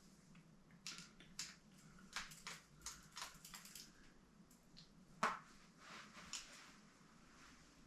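Scattered faint clicks and light taps of small plastic and metal parts of an RC model kit being handled and fitted, with a sharper click about five seconds in.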